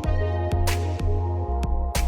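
Electronic background music with a heavy bass and a steady beat, about two beats a second.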